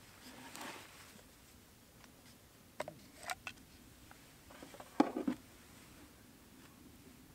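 Light clicks and taps of a sheath knife being handled: a few small clicks near the middle as it comes out of its plastic sheath, then a louder knock about five seconds in.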